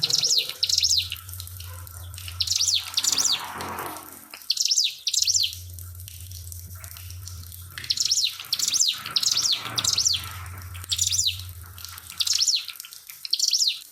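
Ciblek pinus (a prinia) singing in short, sharp, repeated chirping phrases, often in quick pairs, over a faint trickle of water. A low hum comes and goes underneath.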